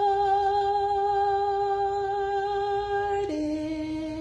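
A woman singing two long held notes: the first sustained with a slight wavering, then about three seconds in she drops to a lower note and holds it.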